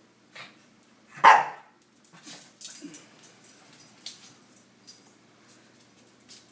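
A dog barks once, loud and short, about a second in, after a fainter yelp just before; light ticks and scuffles follow.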